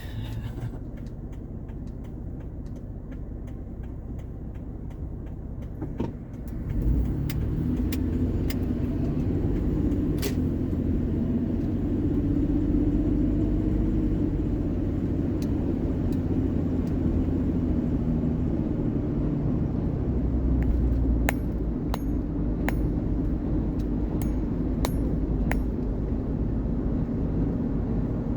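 Vehicle engine and road rumble heard from inside the cab while driving, getting louder about six seconds in as the vehicle pulls away and speeds up. A short run of sharp clicks comes near the end.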